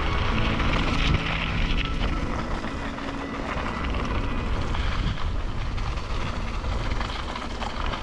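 Wind rushing over a helmet-mounted camera's microphone as a Mongoose Ledge X2 mountain bike rolls fast down a dirt trail, its tyres running on packed dirt. There are a few short knocks from bumps.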